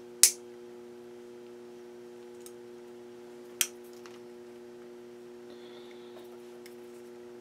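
Needle-nose pliers working a short piece of music spring wire by hand: two sharp metallic clicks, one just after the start and one about three and a half seconds in, with a few faint ticks, over a steady low hum.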